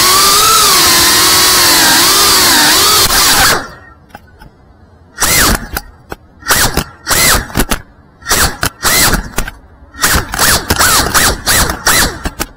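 FPV quadcopter's electric motors whining at high throttle, their pitch wavering. A little over three seconds in the throttle drops off, and the motors then punch back in a quick series of short bursts, each rising and falling in pitch, as the quad rolls and flips.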